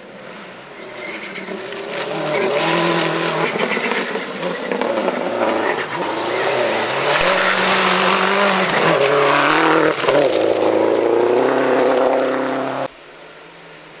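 Rally car engine approaching and passing at speed, revving hard with the pitch climbing and dropping through gear changes. It cuts off suddenly near the end.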